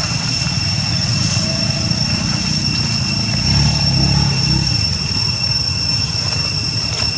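A steady low rumble under a constant high-pitched drone, swelling slightly around the middle.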